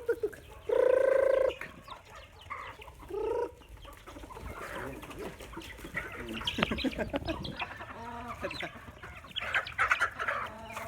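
A flock of chickens clucking and squawking as feed is thrown to them, the clucking and scratching growing busier in the second half. About a second in there is one loud drawn-out call, and a shorter one a couple of seconds later.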